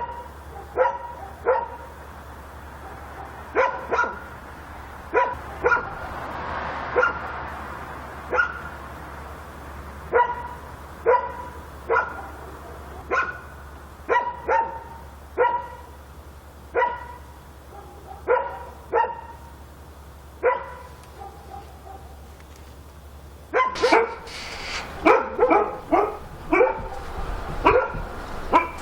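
A dog barking over and over, single sharp barks about a second apart, with a short pause and then a quicker flurry of barks near the end.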